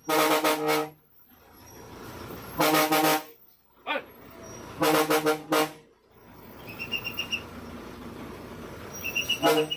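A vehicle horn honks three times, each blast under a second and about two and a half seconds apart, with a short fourth toot near the end. A vehicle engine runs between the blasts, and short high bird chirps come in the later part.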